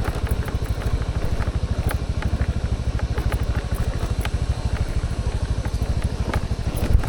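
A small engine running steadily, with a rapid even putter of about a dozen beats a second and scattered light clicks and rattles over it.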